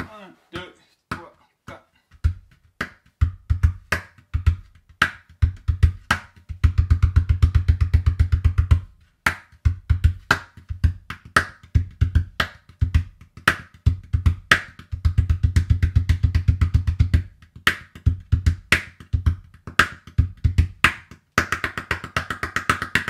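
Large calabash gourd, turned face-down and played with bare hands: a rhythmic solo mixing deep bass thumps with sharp slaps and finger taps. Two long runs of fast bass strokes come at about 7 and 16 seconds in, and it ends on a quick flurry.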